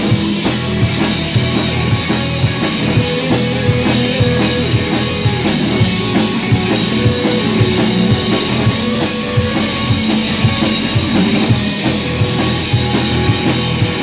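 Rock band playing live and loud, with the drum kit driving a steady beat under bass and guitar.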